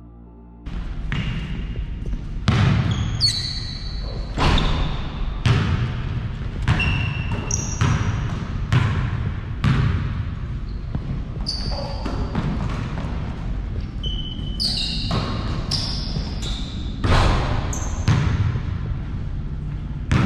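Basketball bouncing on an indoor court about once a second, each bounce ringing in the gym, with short high sneaker squeaks from players cutting on the floor.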